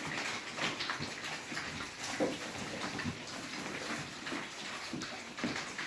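Pigs feeding and moving about in a pen: a run of irregular short clicks and rustles.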